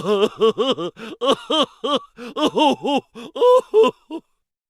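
Comic vocal sound effect: a fast run of short, voice-like syllables, each rising and falling in pitch, about five a second, cutting off about four seconds in.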